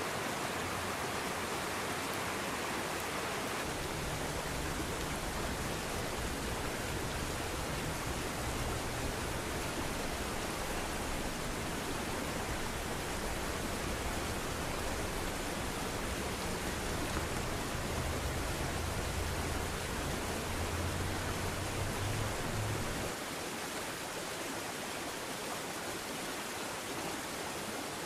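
A creek running in a steady rush of water noise, with a low rumble underneath that comes and goes and drops away a few seconds before the end.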